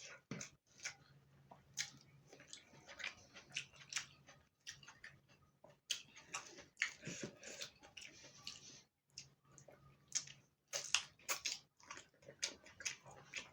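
Close-miked eating sounds: wet chewing and lip smacks from someone eating a rice-and-curry meal. The clicks come irregularly, several a second, over a faint, steady low hum.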